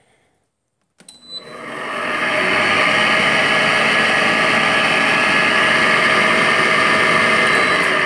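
Frigidaire window air conditioner switched on with a few clicks about a second in, its fan motor spinning up and then running loud and steady. The noise comes from the fan motor's bearings, which the owner thinks took in water.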